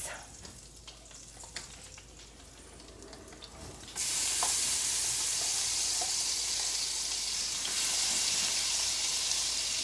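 Minced garlic going into a hot skillet of chicken drippings: after a few faint utensil clicks, a sizzle starts suddenly about four seconds in and carries on steadily.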